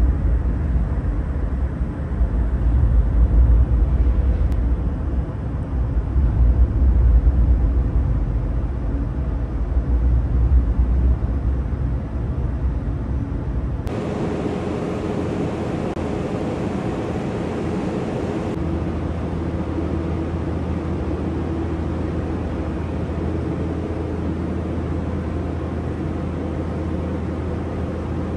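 Ambient noise of an underground transit station. A heavy low rumble rises and falls for about the first half. It gives way abruptly to a steadier, even drone with a faint hum in it.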